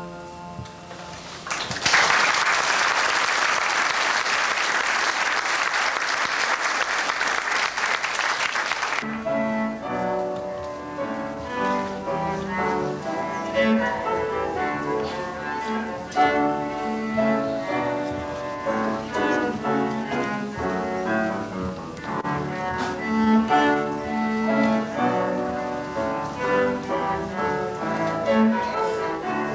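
Instrumental music of separate, stepped notes. About two seconds in, a loud even rushing noise swamps it for some seven seconds and then cuts off suddenly.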